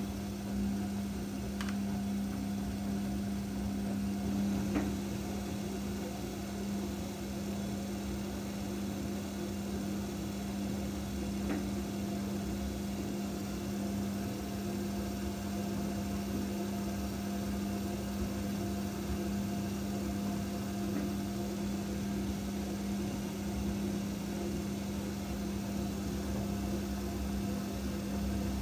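Whirlpool/Vestel washing machine running with a steady drone and a low rumble, the noise of its worn drum bearings. There are a few faint ticks in the first dozen seconds.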